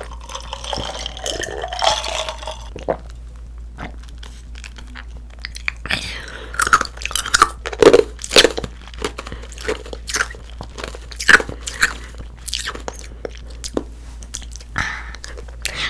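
Close-miked mouth sounds of a girl: a soft sip of cola from a glass jar at first, then, from about six seconds on, irregular wet chewing smacks and mouth clicks.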